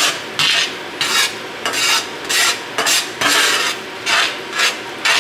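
Metal spatula stirring and scraping thick mushroom gravy around a stainless steel skillet, in regular strokes about twice a second.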